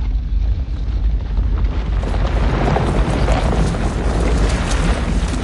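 Loud, sustained low rumble with noisy crashing from film sound effects, with music faintly underneath.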